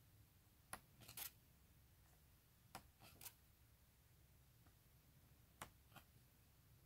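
Faint, brief rustles and taps of glossy photobook pages being turned and handled, coming in small clusters about a second in, around three seconds and near six seconds, over near silence.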